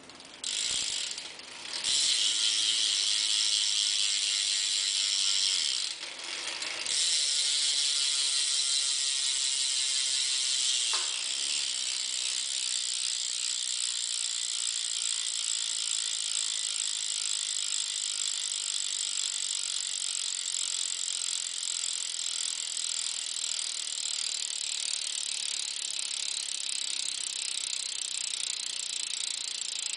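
Freewheeling rear hub of a 2012 Fit Aitken 2 BMX bike, its pawls clicking so fast that they run together into a high buzz as the wheel spins. The buzz drops out briefly about six seconds in, comes back, and turns slightly quieter and steady from about eleven seconds on.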